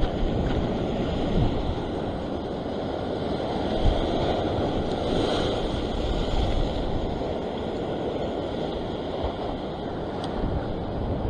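Ocean surf washing and breaking against sea rocks, with wind buffeting the microphone; the wash swells a little around the middle.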